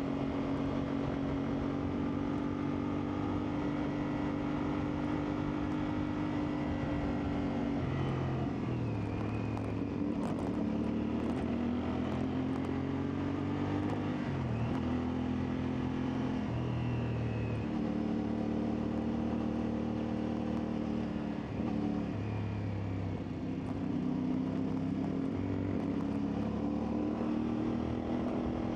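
CFMoto 450MT's parallel-twin engine running while the motorcycle is ridden, its note rising and dropping several times with throttle and gear changes.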